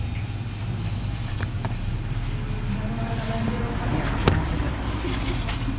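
Steady low background rumble with a few sharp clicks, the loudest about four seconds in.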